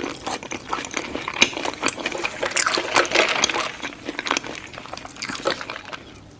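Close-miked mouth sounds of someone chewing fast food: wet, smacking chewing with many small clicks and crackles, dying down about five and a half seconds in.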